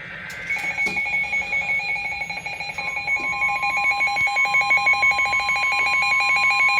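Emergency alert tones for a flash flood warning. A rapidly pulsing alert tone at two pitches starts about half a second in, and a second, steady single tone joins it about three seconds in.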